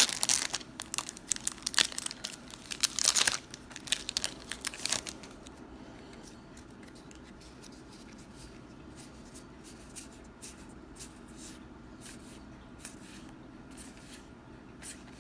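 A foil Magic: The Gathering booster pack wrapper is torn open and crinkled for about five seconds. After that come quieter, scattered flicks of the cards being handled.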